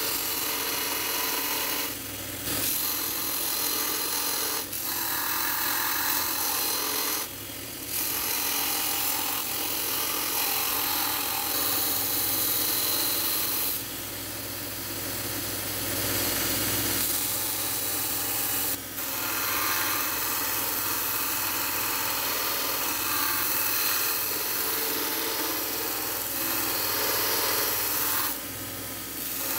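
Belt sander on a Bucktool bench grinder combo running, with a steel knife blank from a bed frame ground against the belt and throwing sparks: a steady grinding rasp that dips briefly several times.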